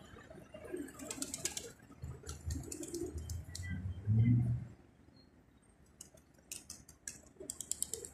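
A flock of feral pigeons cooing, the loudest coo about four seconds in, with several short clusters of fast, sharp clicking.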